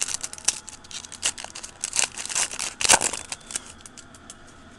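Foil wrapper of a Donruss Elite Extra Edition baseball card pack being torn open and crinkled by hand: a dense run of crackles that thins out after about three and a half seconds.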